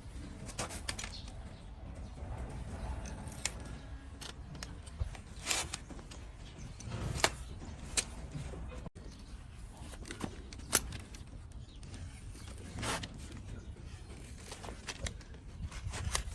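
Donkey hoof being trimmed: a dozen or so sharp clicks and snaps of a cutting tool biting into hoof horn, at uneven intervals over a low steady rumble.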